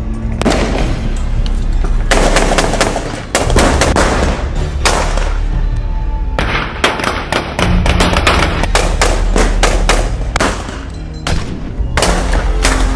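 Rifle gunfire in a firefight, with shots coming singly and in quick strings throughout, over a steady low music track.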